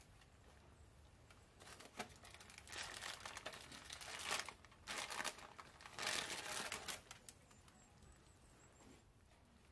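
Aluminium foil covering a baking dish crinkling as it is handled, in several bursts over about five seconds.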